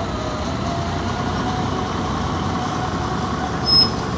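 Ikarbus articulated city bus running at low speed as it pulls past, a steady engine and traffic rumble. A brief high squeak near the end.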